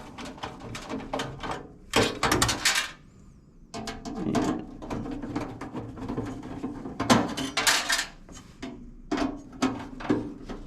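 Screws being taken out of a range hood's sheet-metal grill assembly: a run of clicks, knocks and metal rattles in several clusters.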